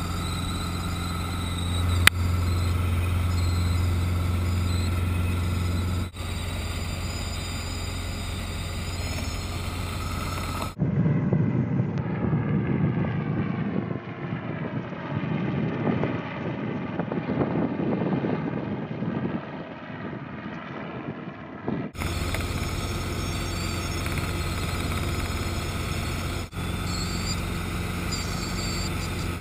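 Light helicopter in flight heard from inside the cabin: a steady low drone from the engine and rotor, with thin whining tones above it. For about eleven seconds in the middle this gives way to a rougher, fluctuating rumble recorded from the ground, with the helicopter high overhead.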